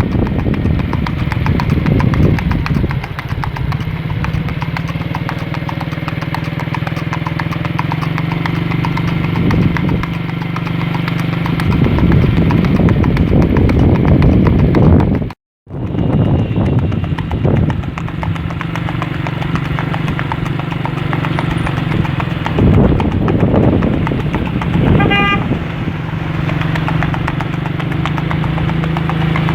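Rapid, even hoofbeats of a Mangalarga Marchador colt moving in the marcha picada gait, over a steady engine drone. The sound drops out completely for a moment about halfway through.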